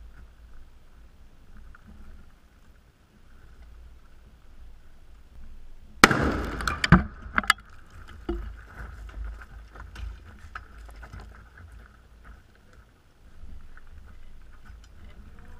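An explosive breaching charge on a breaching pole detonates against a door in one sharp blast about six seconds in, followed by a second or so of crackling and clattering debris, then scattered small knocks.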